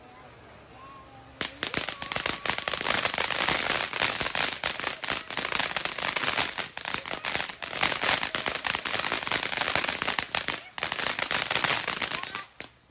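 Fireworks going off in a dense, rapid run of sharp cracks that starts about a second and a half in and lasts about eleven seconds, with a brief break near the end, then stops suddenly.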